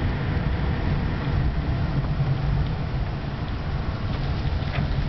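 A car driving along a street: a steady low rumble of engine and road noise.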